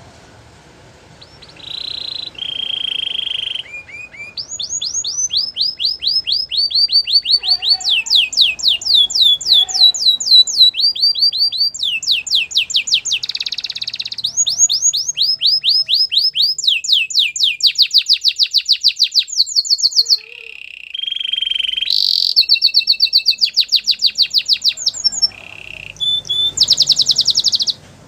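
Canary singing a long, loud song of rapid trills, each trill a quick run of repeated downward-sweeping notes, changing to a new trill every second or two, with a few short buzzy held notes between them.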